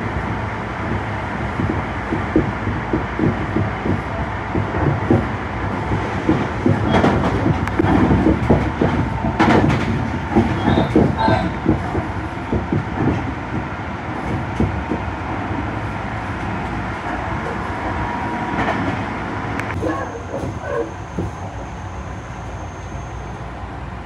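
Tobu 50090-series electric train running at speed, heard from inside the car: a steady rumble with wheels clicking over rail joints, the clicks thickest and loudest partway through. A thin high tone sounds for a few seconds near the end.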